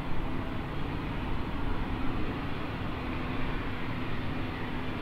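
Cessna 560 Citation Encore's twin Pratt & Whitney Canada PW535A turbofans running at taxi power: a steady jet hum with a faint held tone over a low rumble.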